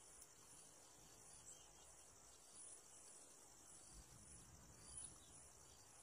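Faint, steady high-pitched chirring of insects such as crickets, running on without a break.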